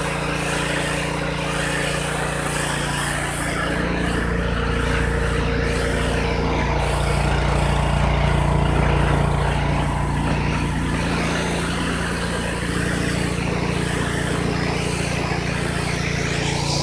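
Pressure washer running steadily, its motor and pump humming under the hiss of the water jet blasting dirt off concrete.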